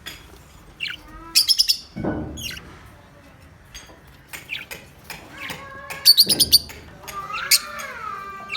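Small pet parrots chirping in their cage: short sharp calls and two quick rapid-fire bursts of high chirps, with lower wavering calls between.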